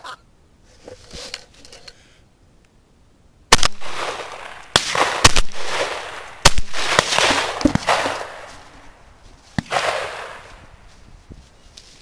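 Several shotgun shots in quick succession, the first about three and a half seconds in and the loudest within the next three seconds, with fainter shots after; each blast trails off in echo.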